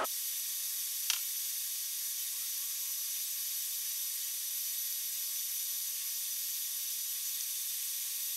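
Steady high hiss with faint constant whining tones, and one short click about a second in.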